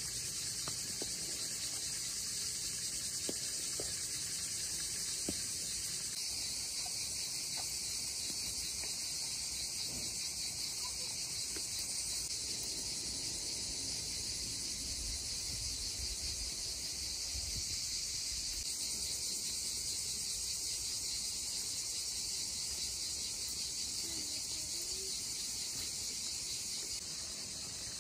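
Steady, high-pitched chorus of insects chirring without a break, with a few faint ticks in the first few seconds.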